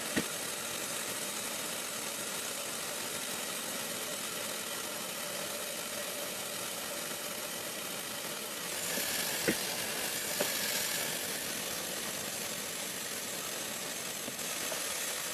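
Water running steadily from a tap into a Vornado Evap40 humidifier tank as it is filled. The hiss brightens for a couple of seconds about nine seconds in, with a few light knocks.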